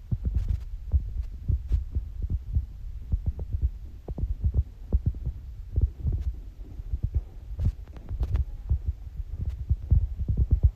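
Irregular low thuds of several people's footsteps going down wooden stairs, a few a second, picked up through a handheld phone's microphone along with handling bumps.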